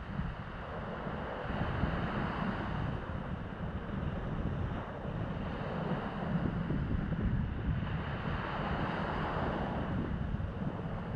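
Sea surf washing in, with wind buffeting the microphone; the wash swells up about two seconds in and again near the end.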